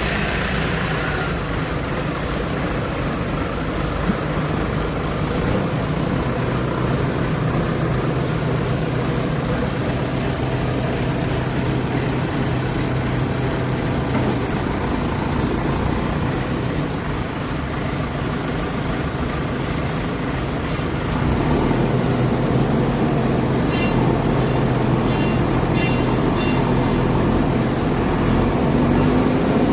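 A backhoe loader's diesel engine running steadily, growing louder about two-thirds of the way in.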